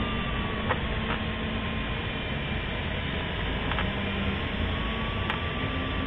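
Steady rush of air over the canopy inside a Schempp-Hirth Duo Discus glider cockpit in unpowered flight, with a thin steady tone that drifts slightly up and down in pitch and a few faint clicks.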